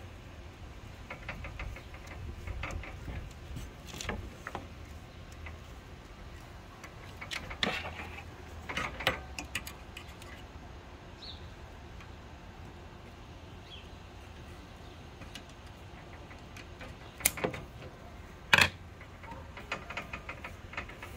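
Rubber gasket strip being pushed into the groove of an aluminium 80/20 extrusion frame, with scattered handling clicks and knocks against the metal. Two sharp knocks near the end are the loudest.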